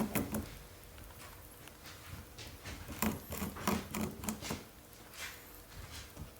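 Pet rabbit chewing and tearing at paper packaging material, making irregular crinkles, rustles and small clicks, busiest in a flurry about three to four and a half seconds in.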